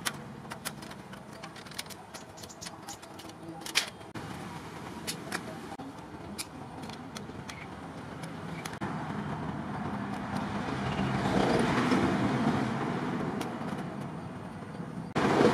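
Tin snips cutting thin sheet metal: a run of short, sharp snipping clicks. From about ten seconds in, a passing vehicle's noise swells and fades, and it is the loudest sound here.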